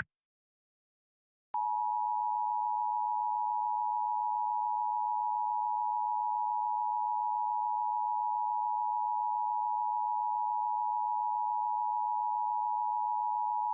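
Emergency Alert System attention signal: a steady electronic alarm tone just under 1 kHz. It comes in about a second and a half in, after a short silence, and holds without a break.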